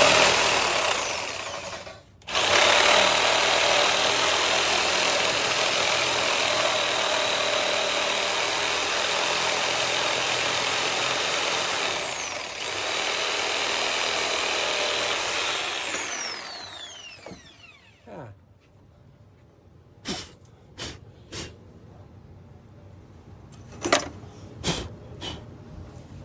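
Power drill running hard, cut off briefly about two seconds in, then running on and spinning down with a falling whine around sixteen seconds. A few sharp metal clanks follow near the end.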